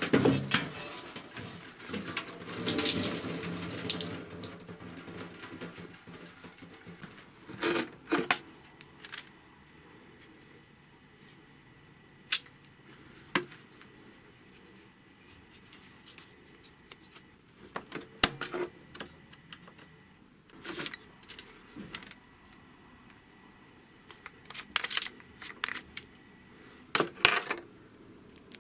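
Water from a shower hose running and splashing over a plastic cassette-deck chassis in a bathtub for the first few seconds. After that, mostly quiet, with scattered clicks and light knocks as circuit boards and panels are handled.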